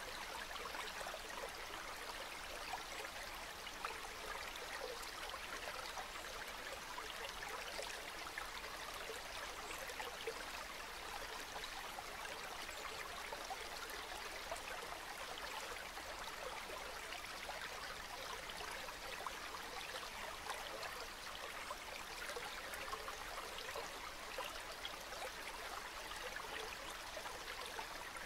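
Calm river water flowing steadily, an even, unbroken rush of water with no single splash standing out.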